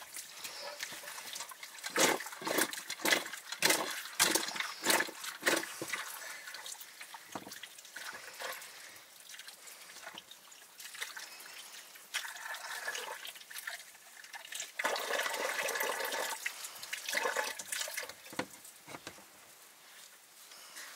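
Water pouring and splashing, with a run of sharp knocks and clatter in the first few seconds.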